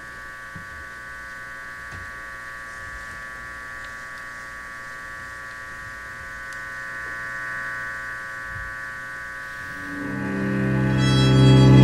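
Contemporary chamber music for electric guitar and string quartet: a quiet, steady chord of high held tones sustains, then about ten seconds in a loud low chord enters and swells.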